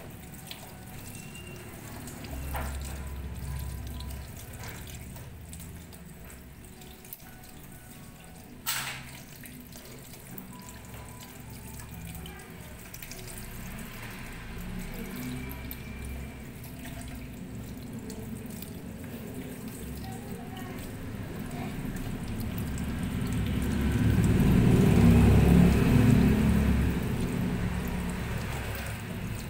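Tap water running steadily into a plastic colander in a steel sink while chicken feet are rinsed under it by hand, with one sharp click about a third of the way through and the water getting louder near the end.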